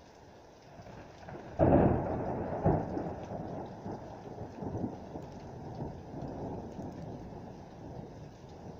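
A sudden clap of thunder about a second and a half in, a second crack about a second later, then rumbling that slowly dies away, over steady rain.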